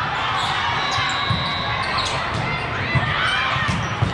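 Indoor volleyball: a few sharp smacks of hands striking the ball, with players calling out over the steady din of a large hall full of spectators and other matches.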